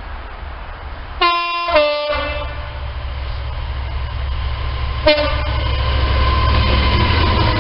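Class 66 diesel locomotive sounding its horn: two quick notes about a second in, the second lower than the first, then a short third note about four seconds later. Underneath is the low drone of its two-stroke diesel engine, growing louder as the train approaches.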